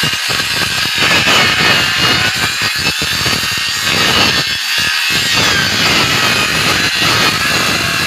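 Handheld electric circular saw running at speed and cutting through a thick bamboo pole: a steady high whine over a rough, grainy cutting noise.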